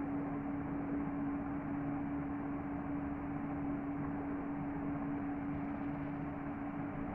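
Steady hum, one constant low-pitched tone over an even hiss, with no change or knocks.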